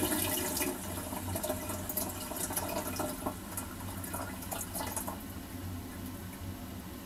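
A toilet's water refilling after the flush: water running and trickling, with scattered drips, fading away over about five seconds to a faint steady hum.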